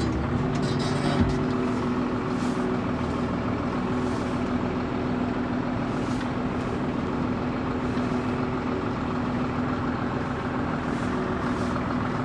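New Holland TM140 tractor's six-cylinder diesel engine running steadily under light load as the tractor drives slowly forward, heard from inside the cab, pulling away smoothly with no jerking. A low thump about a second in.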